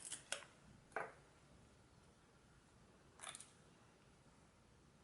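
A few faint, short clicks and taps of a precision screwdriver and the phone's tiny pentalobe screws being handled, three in the first second and one more about three seconds in.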